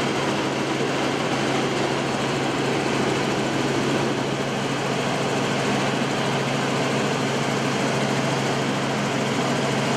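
Helicopter in flight heard from inside the cabin: a steady, unchanging drone of engine and rotor, a low hum under a wide rushing noise.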